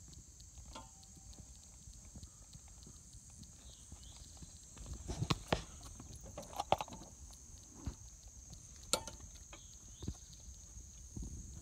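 Haflinger horses' hooves knocking on pavement as the harnessed team stands and shifts its feet: a few scattered, irregular clops rather than a walking rhythm, the loudest about five to seven seconds in.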